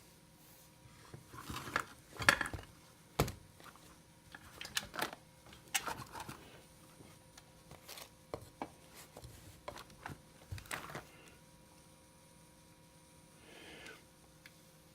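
Small chainsaw parts being handled during assembly: scattered clicks, taps and light knocks, the sharpest about three seconds in.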